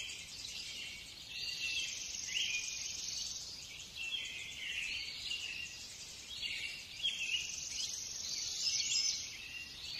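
Faint, high-pitched chirping: short notes that glide up and down, repeated all through, with nothing lower beneath them.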